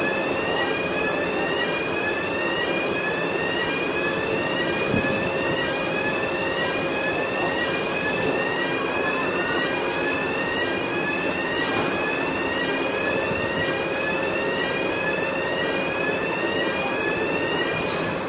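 Ferry warning alarm sounding a rising electronic tone over and over, about once a second, over the steady hum of the ship's machinery: the signal given while the bow visor and car-deck gear are moved for departure. A few faint knocks come through.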